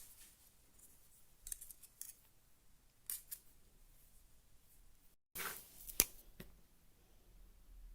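Faint clicks and short scrapes of small tools or metal pieces being handled, a few at a time, with one sharp click about six seconds in.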